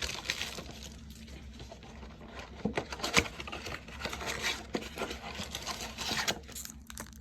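A baseball-card blaster box being opened and its foil packs pulled out: scattered rustling and crinkling of the packaging, with a sharp click about three seconds in.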